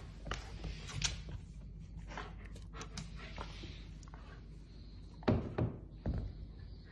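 A large dog moving about on a wood floor and handling a rubber ball toy, giving scattered light taps and knocks. The loudest thuds come a little over five seconds in, as the ball drops from its mouth onto the floor.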